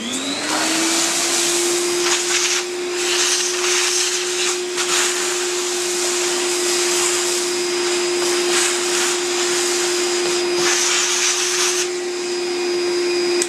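Shop vacuum switched on, its motor spinning up to a steady whine, and rushing as it sucks up acrylic chips, then switched off at the end, its pitch falling.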